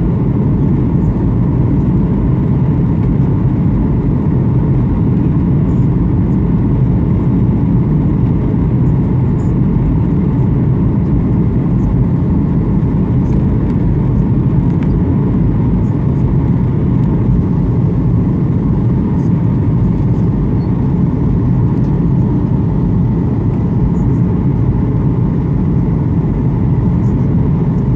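Steady cabin noise inside a Boeing 737 airliner during its descent: engine and airflow noise as a constant low rumble, with a faint steady whine above it.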